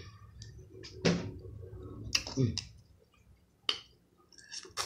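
A few sharp clicks and cracks of crawfish shell being picked apart by hand and mouth, with soft wet eating sounds between them and a pause of about a second and a half in the middle.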